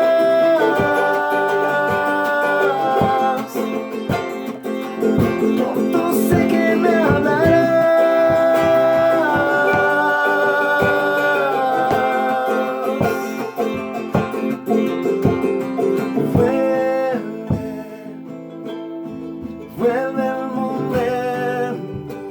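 Acoustic guitar strummed in a Bolivian folk rhythm, with voices singing long held notes. The music gets quieter and sparser over the last few seconds.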